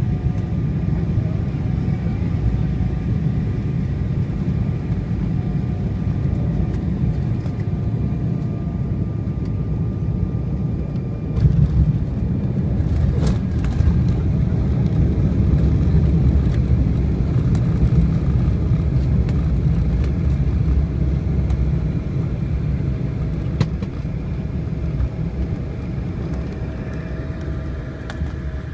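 Cabin sound of an Embraer E190 airliner landing: the steady rumble of its GE CF34 turbofans and the airflow, with a faint steady whine above it. About eleven seconds in comes the thump of touchdown, then a louder rumble as the jet rolls out and brakes on the runway, easing off over the last few seconds.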